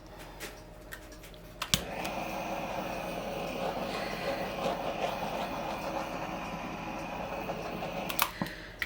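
Handheld torch clicked on about two seconds in, running with a steady hiss for about six seconds, then clicked off. In acrylic pouring it is used to pop air bubbles in the wet paint.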